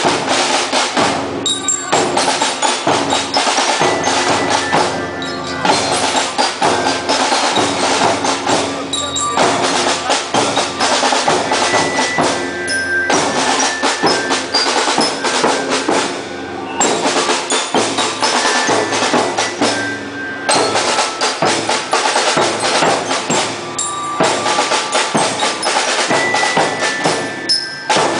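Marching band playing: drums and percussion with ringing mallet bells over sustained pitched instruments, in phrases broken by brief dips about every four seconds.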